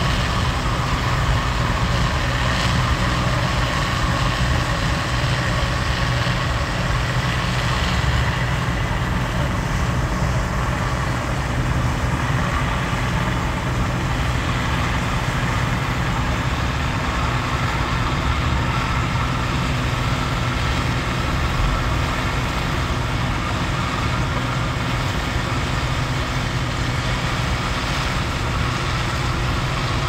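Gleaner combine harvesting soybeans: engine and threshing machinery running at a steady, even drone.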